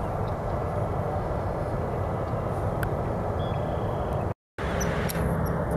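Jet airliner's engines at takeoff power during its takeoff roll, heard as a steady, distant rumble. About four and a half seconds in the sound drops out for a moment, then a similar rumble resumes with a faint steady engine tone.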